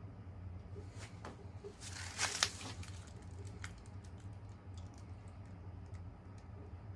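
Casablanca Victorian ceiling fan running with a low steady hum. About two seconds in, a short burst of rustling and clicking is the loudest sound, followed by a few scattered light ticks.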